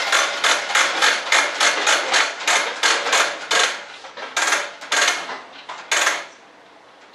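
A quick series of sharp knocks, about three a second, slowing and stopping about six seconds in.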